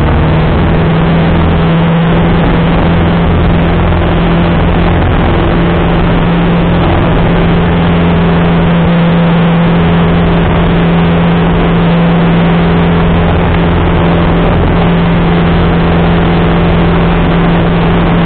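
Single-engine light aircraft's piston engine running at a steady, high note, heard inside the cabin under a heavy rush of airflow. Power is back on after the simulated engine failure and the aircraft is climbing away.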